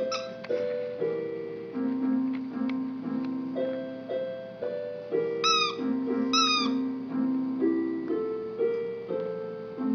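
Piano being practised slowly, single notes and small chords ringing and fading one after another. A little past the middle come two short, high squeaks about a second apart.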